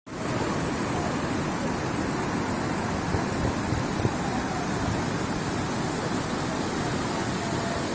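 Steady rushing of gushing stream water flowing down toward the base of a waterfall.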